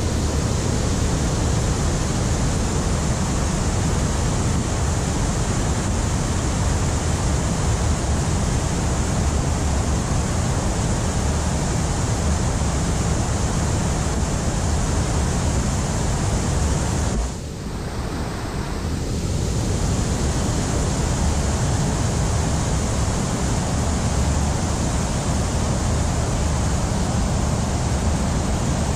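Steady rushing noise of wind and moving river water, heaviest in the low rumble. It drops away for a couple of seconds about two-thirds of the way through.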